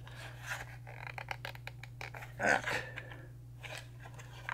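Small plastic clicks and scrapes as the battery cover on the back of a Commodore 774D calculator is worked open by hand, with a louder scrape about two and a half seconds in.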